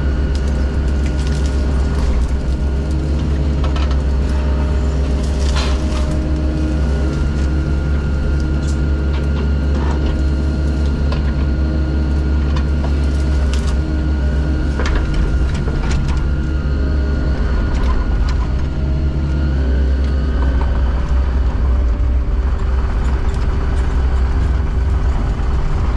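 Diesel engine of heavy construction equipment running steadily under load, with a few sharp metallic clicks or knocks along the way. The engine note shifts slightly about twenty seconds in.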